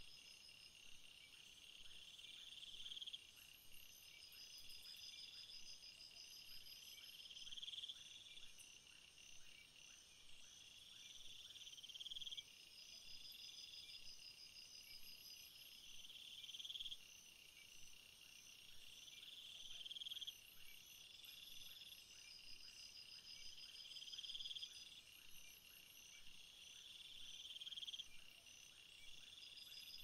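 A faint chorus of crickets and other insects, several high-pitched songs overlapping. The loudest is a trill that builds for about two seconds and stops abruptly, repeating every four to five seconds, over a steady chirring.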